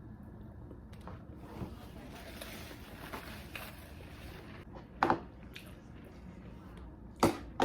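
Soft rustling, then a sharp knock about five seconds in and a quick run of clicks and knocks near the end: things being handled at close range.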